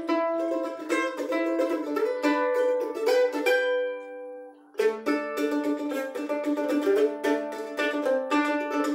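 Solo F-style mandolin played with a pick in a fast, busy groove. About three and a half seconds in, a chord is left to ring and fades almost to nothing, then the picking starts up again about a second later.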